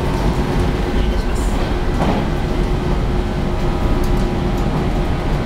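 Interior running noise of a JNR-type resistor-controlled electric multiple unit at speed, which the uploader takes for a 413 series. A heavy, steady rumble of wheels on rail, with a steady hum held over it.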